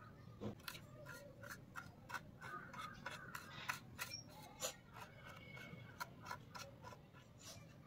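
Faint, irregular ticks and scrapes of a plastic rangoli tool drawing lines through coloured powder on a hard floor.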